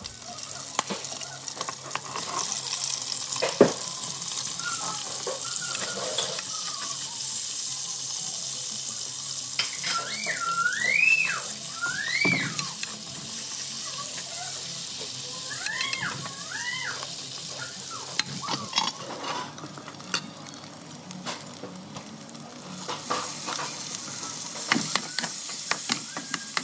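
Cut-up hot dog pieces sizzling as they fry in oil in a skillet, with a metal spoon stirring and clinking against the pan. A few short sliding squeaky tones come about halfway through.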